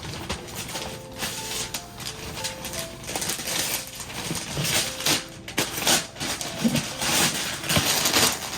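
Gift wrapping paper rustling and tearing in repeated bursts as a present is unwrapped, with a few faint held musical notes in the background during the first few seconds.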